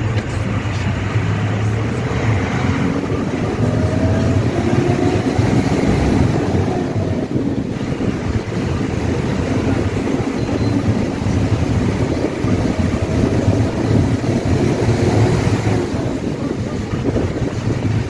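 Vehicle driving along a road: steady engine and road noise, with a few faint rising and falling whines and wind buffeting the microphone.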